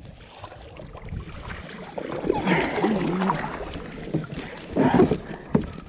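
Paddles dipping and splashing as a tandem sit-on-top kayak is paddled on open sea, with water washing along the plastic hull and wind on the microphone.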